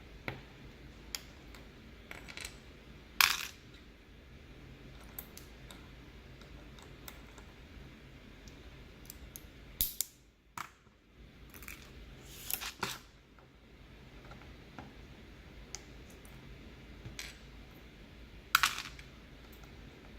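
Scattered sharp plastic clicks and clacks as Halo True keyboard switches are handled and opened with a switch opener, with a few louder clacks, the loudest about three seconds in and near the end.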